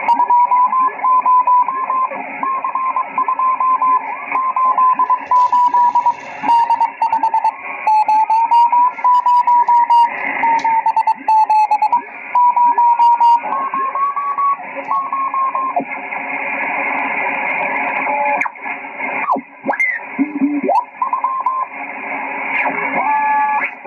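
Receiver audio from a Yaesu FT-847 tuned across the FO-29 satellite's downlink: radio hiss with a whistle tone that breaks off and resumes and drifts a little in pitch, and other tones sliding up and down as the tuning dial is turned.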